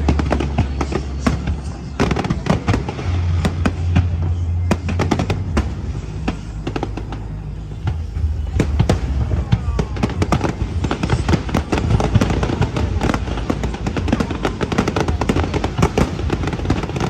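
Fireworks display: shells bursting and crackling in rapid, overlapping bangs, thinning briefly about seven seconds in and then growing denser, with music playing underneath.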